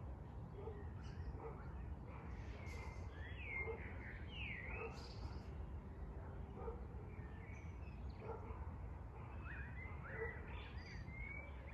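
Birds chirping, with short sweeping calls scattered throughout and most frequent in the middle and again near the end, over a steady low background rumble.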